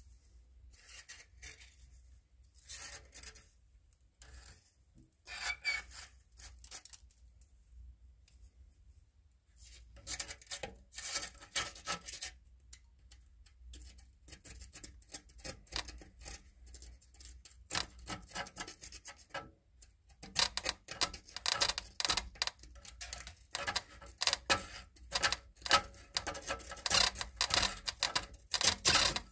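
A thin metal tool scraping and scratching crusty deposits off the ribbed stainless-steel coil inside a boiler's combustion chamber, in quick gritty strokes. The strokes come in short spells at first, then in denser, louder runs from about ten seconds in, busiest near the end.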